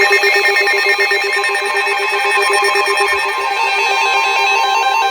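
NOAA Weather Radio alert tones sounding loudly ahead of a warning message: a fast-pulsing electronic warble, joined about three and a half seconds in by a steady single-pitch tone.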